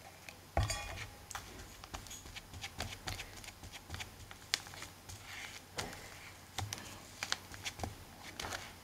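Flat paintbrush dabbing and scrubbing glue into fabric laid over chipboard: scattered soft taps and clicks with brief brushing noises, and a slightly louder knock about half a second in.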